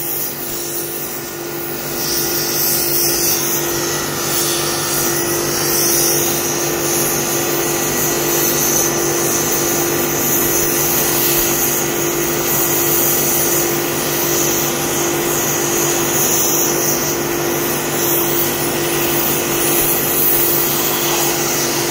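Oxy-fuel gas cutting torch hissing steadily as its oxygen jet burns holes through a steel plate, with a steady low tone underneath. It gets a little louder about two seconds in.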